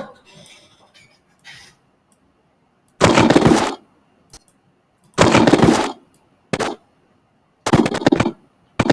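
Sound effects played back from an editing timeline: about five short, loud, noisy bursts, the first about three seconds in, the others following at uneven intervals.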